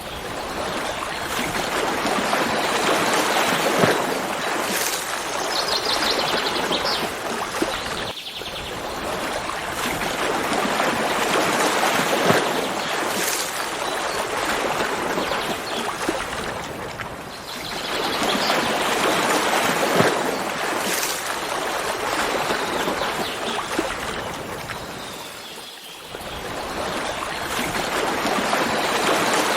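Running water of a forest stream rushing steadily, swelling and easing about every nine seconds. A bird gives short runs of high chirps a couple of times.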